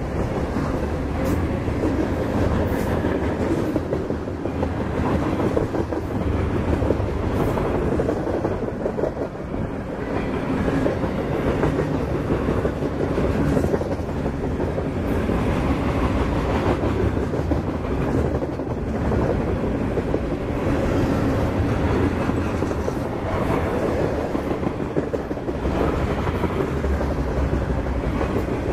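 Freight train of flatcars loaded with trash containers rolling past: a steady rumble of steel wheels on the rails with a rapid clickety-clack over the rail joints.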